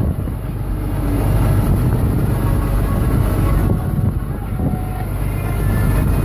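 Engine of farm haying machinery running steadily.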